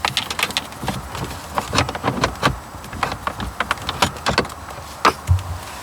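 Phillips screwdriver backing screws out of a car's plastic dash around the instrument cluster: an irregular run of small clicks, ticks and taps.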